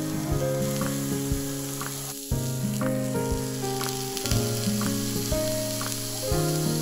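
Beef fillet steak sizzling on an iron griddle plate, under background music of held notes that changes note every half second or so and drops out briefly about two seconds in.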